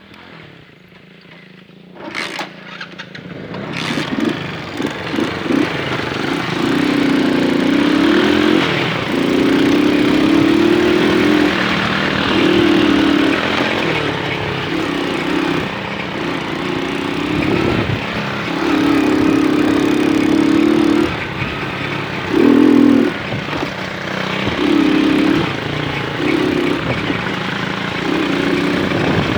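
Small moped engine pulling away and being ridden, its note rising and falling as the revs change. It comes in about two seconds in and is loud by about four seconds.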